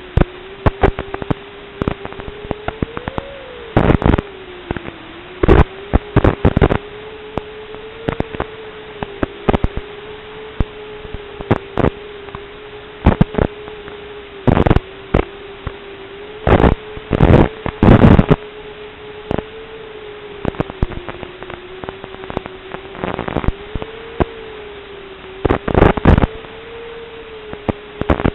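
Audio channel of an analog FPV video link, recorded by the goggles' DVR: a steady hiss with a faint wavering hum, broken again and again by short, loud bursts of static crackle. These bursts are typical of the video signal breaking up for moments.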